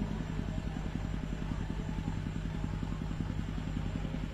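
An engine running steadily at an even speed: a low hum with a rapid, regular pulse.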